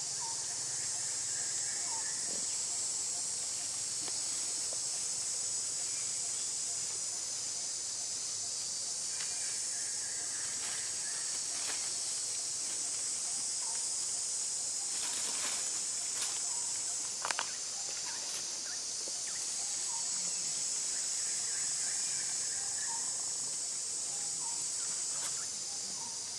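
Steady high-pitched insect chorus filling a tropical forest, with a few faint bird chirps. A handful of sharp clicks come about two-thirds of the way through.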